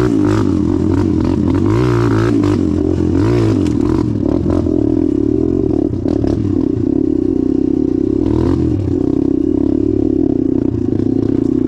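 Suzuki DR-Z dirt bike's single-cylinder four-stroke engine running, its pitch rising and falling with the throttle, with scattered clattering knocks mixed in.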